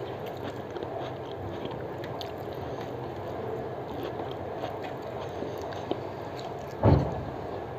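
Fingers mixing rice and aloo posto on a steel plate, soft squishing with small clicks and light scrapes, along with chewing, over steady background noise. A single dull thump just before the end is the loudest sound.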